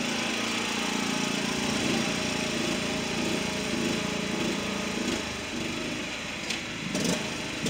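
John Deere riding lawn mower's small engine running steadily as the mower drives, with a few short clicks near the end.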